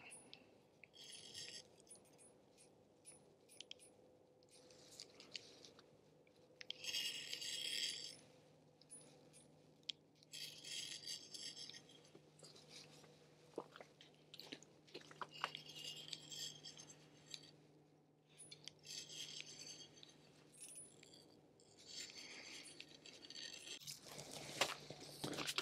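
Faint, irregular bouts of light rattling and clinking, each lasting about a second, over a low steady hum.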